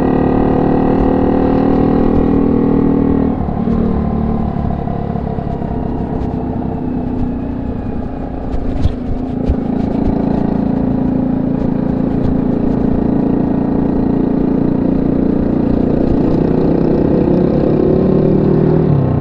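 Honda C70's single-cylinder four-stroke engine running through a banana-style 'pisang' exhaust. Its note drops about three seconds in, sags with a couple of clicks near the middle, then holds steady and climbs a little again near the end.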